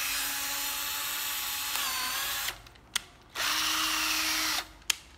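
Hitachi 12V cordless drill-driver motor running at free speed with a steady whine, smooth and quiet. It stops about halfway, a click follows, it runs again for just over a second at a slightly higher pitch, then stops with another click.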